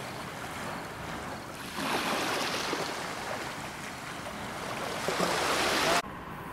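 Water splashing and washing, with wind buffeting the microphone. It gets louder about two seconds in and cuts off abruptly near the end, giving way to a quieter steady noise.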